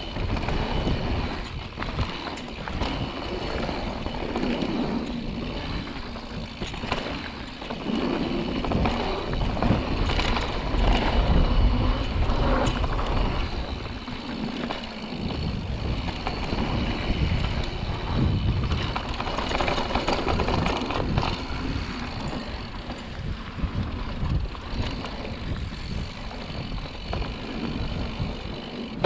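Mountain bike descending a dirt trail, heard from a handlebar-mounted GoPro: tyres rumbling over the dirt and the bike rattling over bumps, with wind on the microphone. Loudest about ten to thirteen seconds in.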